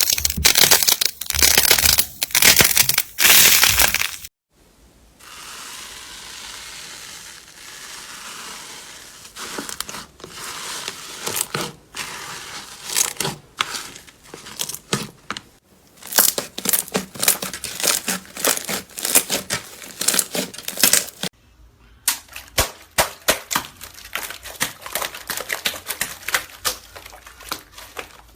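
Slime being squeezed and pressed, in spells of dense crackling and popping clicks, with a quieter stretch of steady hiss about five to nine seconds in.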